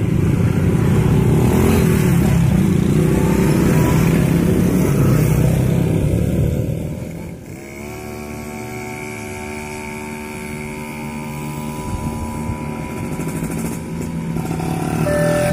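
Motorcycles and other road traffic passing, loudest in the first half, then quieter with a steady humming engine note. At the very end the level crossing's new electronic warning siren starts with a single steady tone.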